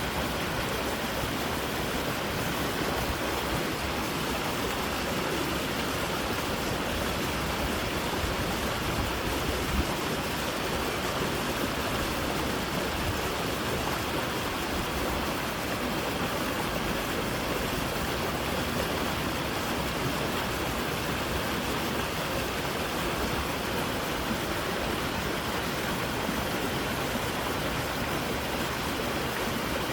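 Creek water rushing, a steady, even rush with no change.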